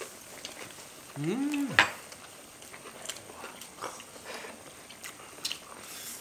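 People eating boiled chicken with chopsticks: faint chewing and scattered light clicks of chopsticks and dishes. A little over a second in there is a brief vocal sound of enjoyment that rises then falls in pitch, ending in a sharp click, the loudest sound here.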